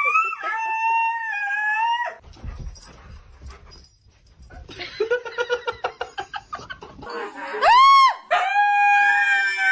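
A dog howling in long, drawn-out notes. A rapid pulsing stretch sits in the middle, and a loud rising and falling howl comes about eight seconds in.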